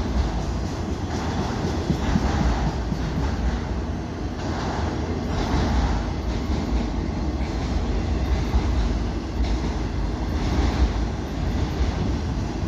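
A freight train's cars rolling past close by: a steady rumble of wheels on rail with a recurring rattle and clatter.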